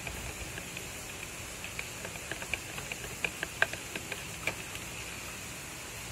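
Metal spoon stirring thin takoyaki batter in a plastic bowl, making light, irregular clicks and ticks against the bowl, with a faint steady hiss underneath. The clicks come thickest in the middle of the stretch, the loudest about three and a half seconds in.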